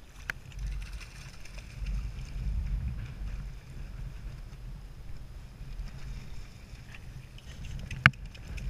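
Gusting wind rumbling on the microphone, strongest for a few seconds near the start, over water lapping at a choppy lake shore. A single sharp knock near the end.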